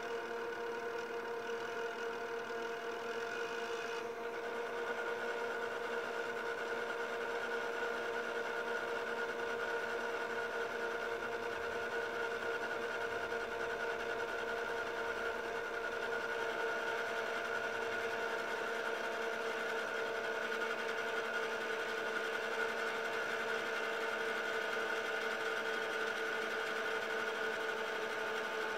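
Panasonic NV-MS1 S-VHS camcorder fast-forwarding an E180 VHS tape: a steady motor whir of the spinning reels with two sustained tones, some fainter higher tones dropping away about four seconds in.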